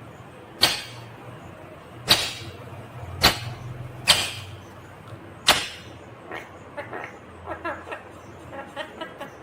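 Indian ringneck parakeet giving five short, loud, sharp screeches about a second apart, then softer, quicker chattering calls in the second half.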